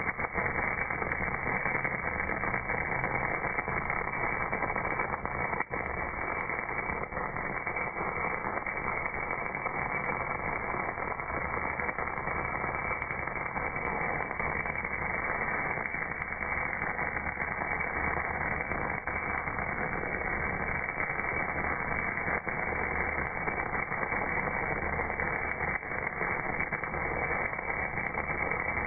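MAG welding arc on a casting, played back slowed down: a steady, dense crackling noise, lowered in pitch so that it sounds dull and rushing.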